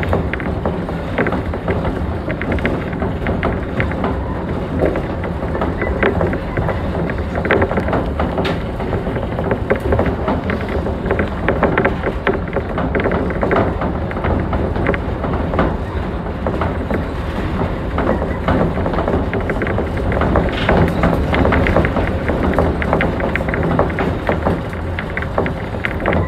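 Shonan Monorail suspended monorail car running at speed, heard from inside the car: steady rubber-tyre and motor rumble with a low hum and frequent small clicks and rattles.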